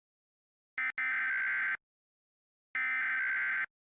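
Emergency Alert System SAME header: two bursts of digital data tones, each about a second long and a second apart. This is the encoded header that opens a new alert.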